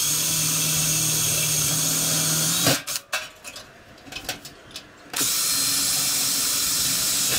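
Cordless DeWalt drill running as it bores holes through the sheet metal of an aftermarket VW Beetle fan shroud. It runs in two steady spells of about two and a half to three seconds each, with a pause between them holding a few light knocks.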